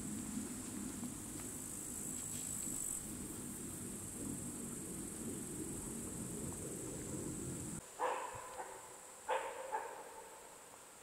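Insects chirring in a steady high-pitched hiss over a low rumble, which cut off abruptly about eight seconds in. Then come a few short, sharp animal calls, like barks.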